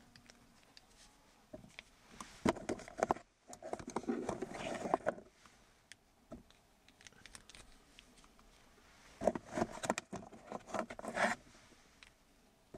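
Rifle cartridges being pushed into a cartridge holder: two spells of clicking and scraping, a few seconds apart, as metal cartridges rub and knock against the holder.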